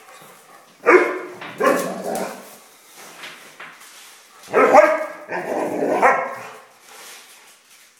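Rottweiler giving play barks, four drawn-out barks in two pairs: one pair about a second in, the other around the middle.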